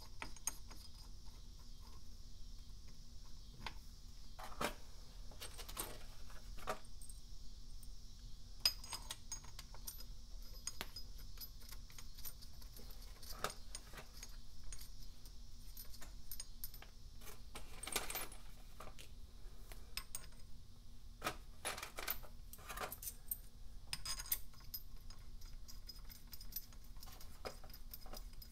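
Small metal clinks and clicks of bolts and washers being dropped into and threaded by hand through an aluminium cam-locking bar on a motorcycle cylinder head, scattered irregularly throughout, over a faint steady hum.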